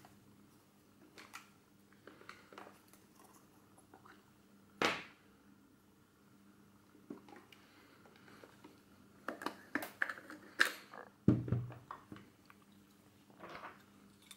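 Hands handling the plastic body of a Revue Cockpit Sound 800 Super 8 camera and opening its grip to take out the battery holder: scattered clicks and knocks, a sharp click about five seconds in, then a quick run of clicks ending in a heavier thump a little past the middle.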